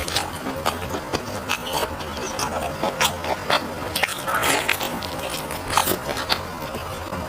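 Close-miked eating: chewing with many short, sharp mouth clicks, and a couple of longer slurps about four and six seconds in.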